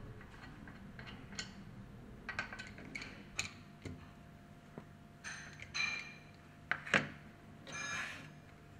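Scattered metal clicks, taps and clinks of a ratchet wrench and bolts on a metal pump cover as it is bolted up, a few of them ringing briefly.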